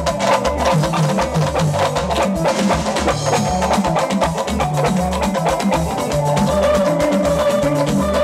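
Live highlife band playing an instrumental passage: a steady drum-kit beat over a repeating bass line, with electric guitar on top.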